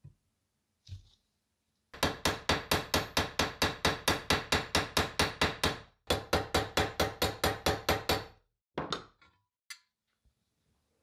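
A hammer tapping quickly and evenly on thin sheet steel, about six or seven blows a second, in two runs split by a brief pause about six seconds in, followed by a few single taps. The blows fold the rolled edge of the sharpener's sheet-steel housing down over its end plate.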